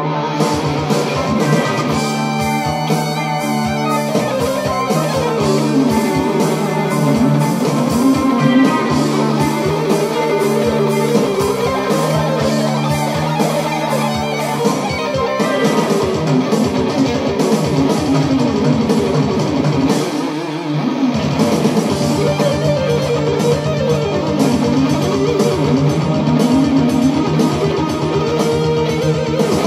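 Electric guitar played through a Hughes & Kettner tube amplifier: an instrumental rock lead with a steady rhythm underneath.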